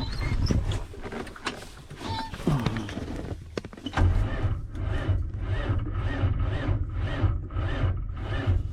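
A Detroit diesel truck engine being cranked by its starter. After a few clicks and knocks, it turns over slowly from about four seconds in, pulsing evenly about twice a second without catching. This is the sign of a battery too low to spin it up.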